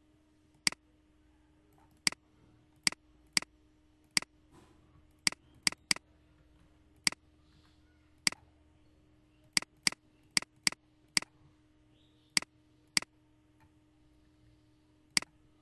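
Computer mouse clicking about eighteen times at irregular intervals, some clicks in quick pairs, over a faint steady electrical hum.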